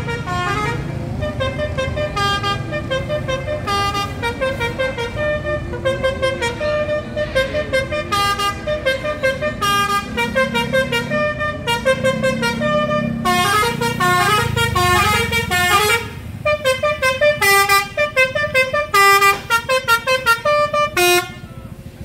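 Telolet Basuri V3 musical bus horn playing a rapid tune of short notes that step up and down, with the Mercedes-Benz coach's diesel engine running underneath. The notes break off briefly about sixteen seconds in and again near the end.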